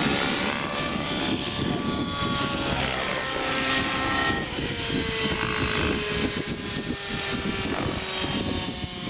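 Align T-Rex 700 nitro RC helicopter flying 3D aerobatics: its two-stroke glow engine and rotor blades wail, the pitch changing with the manoeuvres and sliding down over the last few seconds as it comes down low.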